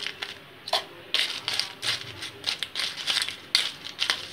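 Ice being added by the spoon to a steel mixer jar of blended milk coffee: an irregular run of crunches and sharp clicks as the ice and the spoon knock together and against the jar.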